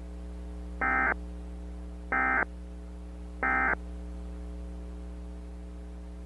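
Emergency Alert System end-of-message code: three short, harsh digital data bursts about a second apart, each lasting a fraction of a second, over a steady low electrical hum. The bursts close out the monthly test.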